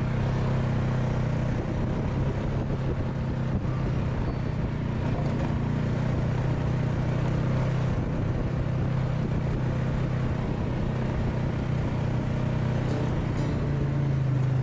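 ATV engine running steadily at a constant riding speed, with an even, unchanging pitch.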